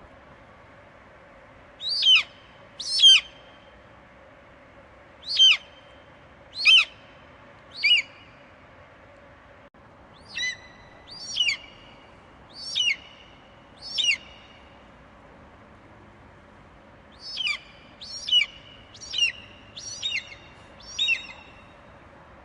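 Eagle screeching: three bouts of sharp, high calls, each call falling steeply in pitch. There are five calls about two seconds in, four more about ten seconds in, and a faster run of six near the end.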